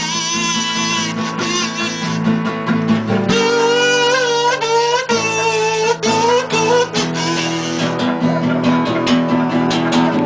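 Band music with strummed guitar chords under a wavering melody line.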